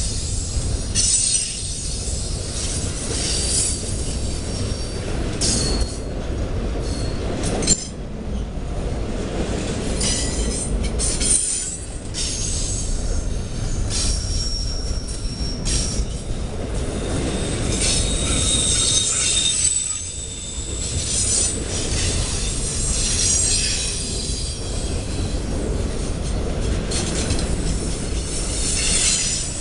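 Intermodal freight train's loaded well cars rolling past close by: a steady low rumble with high wheel squeal coming and going, and a few short knocks.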